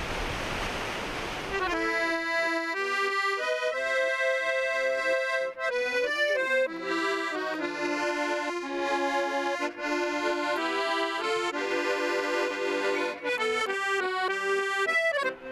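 A rushing noise for about the first second and a half, then accordion music: a tune played over held chords.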